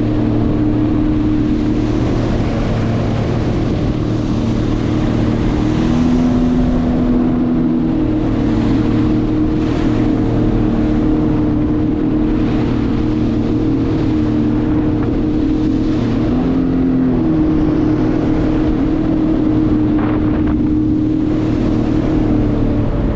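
Jet ski engine running at a steady cruising speed, with a rush of wind noise on the microphone. The engine note drops briefly twice, about six and about sixteen seconds in, and then comes back up.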